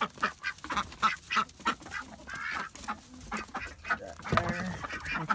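Ducks quacking over and over, many short calls in quick succession, with a lower call about four seconds in.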